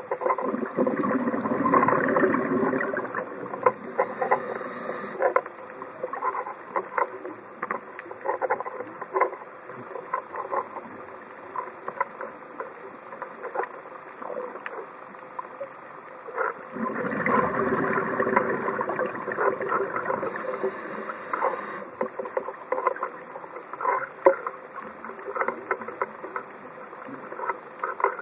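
Scuba diver's regulator breathing underwater: a long bubbling exhalation near the start and again about halfway through, each followed by a short high hiss. Between breaths, steady scattered crackling and clicking of the reef.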